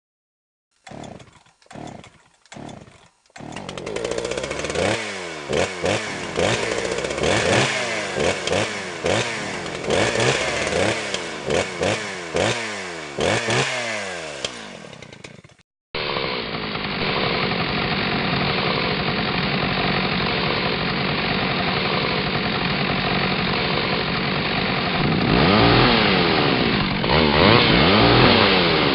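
Two-stroke chainsaw being pull-started: four short pulls, then it catches and is revved up and down over and over before cutting off suddenly. After that a chainsaw runs steadily, revving again near the end.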